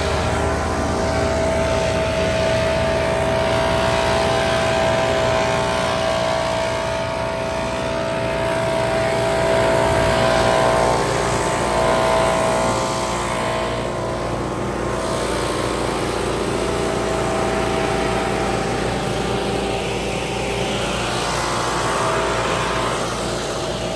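Several gas-powered Stihl backpack leaf blowers and a wheeled walk-behind leaf blower running together at high speed while blowing leaves. The engine drone and air rush hold steady, with small rises and falls in loudness.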